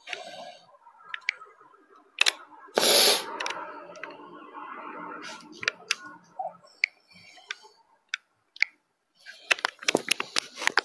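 Handling noise from a phone held at arm's length: scattered sharp clicks and taps, a short loud rustle about three seconds in, and a quick run of clicks near the end.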